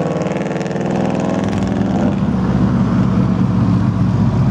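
2015 BMW S1000RR's 1000cc inline-four engine idling steadily, its low rumble growing louder and rougher about two seconds in.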